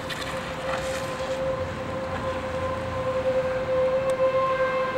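Outdoor civil-defense tornado warning siren sounding one steady tone over a noisy background, growing louder near the end.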